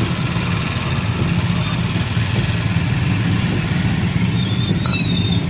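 A vehicle engine running steadily under a constant hiss, with a deep hum carrying through.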